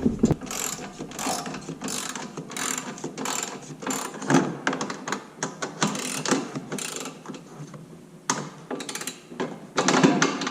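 Ratchet wrench clicking in a run of short back-and-forth strokes while tightening a bolt, pausing briefly near the end before a few more strokes.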